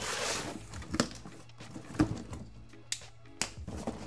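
A cardboard parts box dragged across the floor and handled: a short scraping rush at the start, then a few sharp knocks and taps as the flaps are opened.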